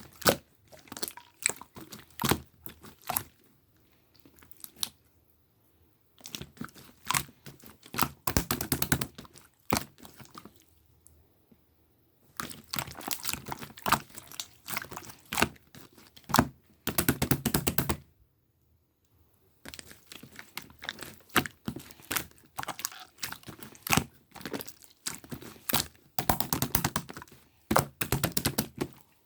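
Slime being squeezed and pressed by hand, giving runs of crackling clicks and pops in bursts, with a few short pauses between them.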